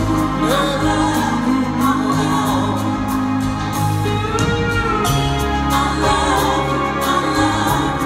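Live performance of a slow song: singing voices over Kawai keyboard chords and a sustained bass line, with one held sung note gliding up and down about halfway through.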